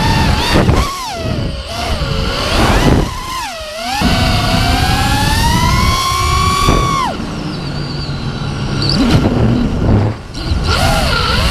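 Racing quadcopter's four brushless motors (Scorpion 2205, 2350 kV) driving 5-inch three-blade props, their whine rising and falling in pitch with the throttle, over wind rush on the onboard microphone. About halfway through the pitch climbs steadily for a few seconds, then drops away sharply as the throttle is cut.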